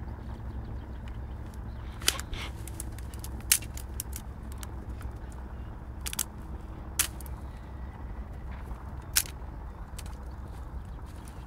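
Dry twigs and branches snapping and crackling, a sharp snap every second or two, as they are broken off and trodden on in dry grass, over a low steady rumble.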